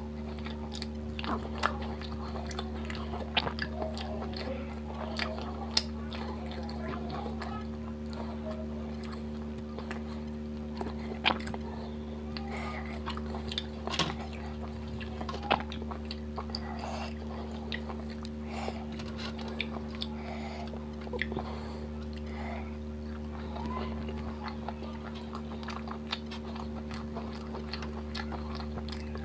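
Close-miked chewing and biting of ghee paratha dipped in fish curry, with irregular wet mouth clicks and smacks, over a steady low hum.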